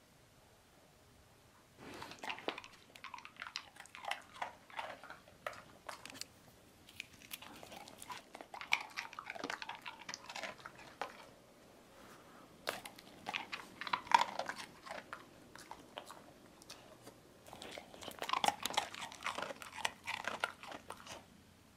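A beagle crunching and chewing a hard dog biscuit: bouts of crisp crunches starting about two seconds in, with short pauses between them.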